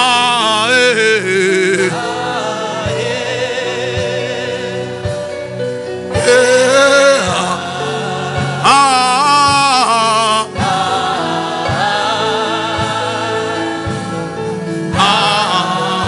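Gospel music: singing in drawn-out phrases with vibrato over sustained keyboard chords and a steady low drum beat about once a second.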